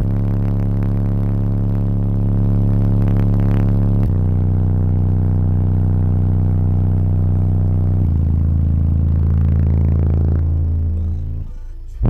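Car-audio subwoofer system (four subwoofers on four Taramps Smart 8K amplifiers) playing a song at full volume, heard inside the truck cabin. The song is mostly long held bass notes that change about every four seconds, and it drops briefly near the end. The bass peaks at about 160 dB at 44 Hz.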